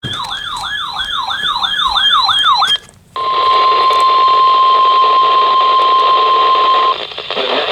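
A warbling electronic alarm tone sweeping up and down about three times a second for nearly three seconds. After a brief break comes a steady NOAA Weather Radio warning alarm tone near 1050 Hz, held for about four seconds over radio static, which signals that a new warning broadcast is about to begin.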